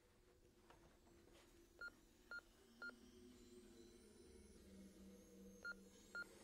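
Telephone answering machine beeping: three short identical high beeps about half a second apart, then about three seconds later two more near the end, over a faint low hum.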